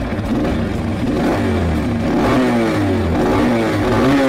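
Motorcycle engine revved several times in quick succession with the throttle, its pitch rising and falling with each twist; loud.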